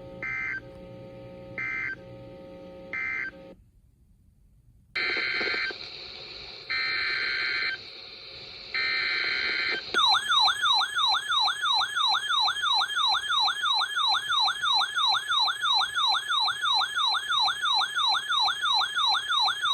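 Emergency Alert System signalling. First come three short bursts of warbling digital data tones, the end-of-message code closing the previous alert. After a brief pause come three longer data bursts, the SAME header of the next alert. About halfway in, a loud attention tone starts and sweeps up and down about three times a second.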